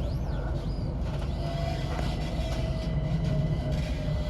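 Class 357 Electrostar electric multiple unit running, a steady low rumble with a thin motor whine that slowly falls in pitch.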